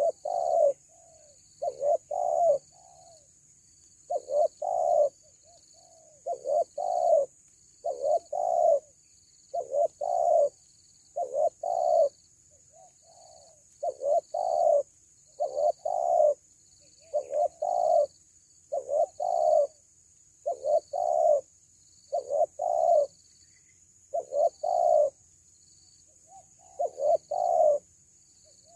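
Spotted dove (tekukur) cooing over and over, in short phrases of two or three low notes repeated about every one and a half to two seconds.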